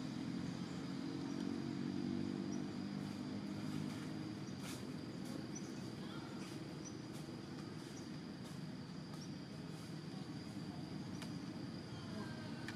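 Outdoor ambience: a low engine-like hum, stronger in the first few seconds, under a thin steady high insect drone, with a few faint clicks.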